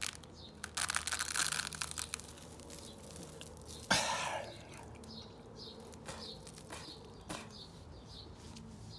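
A bundle of uncooked spaghetti being bitten: the dry noodles crackle and crunch between the teeth, then snap with one loud crack about four seconds in as pieces break off and fall.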